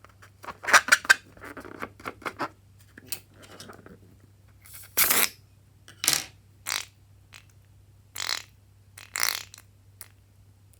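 Fluffy slime being squeezed and worked by hand, giving a series of short wet squelches and sticky pops, with some quicker clicky crackles in the first couple of seconds.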